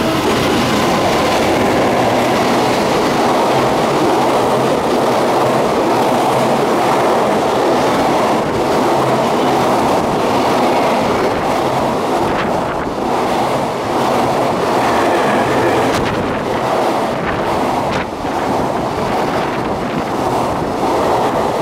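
Container freight train hauled by a JR Freight EF200 electric locomotive passing close by without stopping: a loud, steady rumble of the wagons' wheels on the rails with clickety-clack over the rail joints. The separate clicks become more distinct in the second half.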